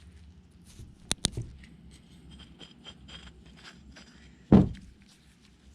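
Hammer striking a wheel stud to drive it out of a hub flange: two sharp light taps close together about a second in, then one much harder blow near the end.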